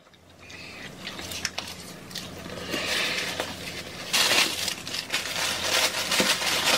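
Close-miked chewing of tacos, a crackly mouth-and-food noise with many small clicks, growing louder about three to four seconds in.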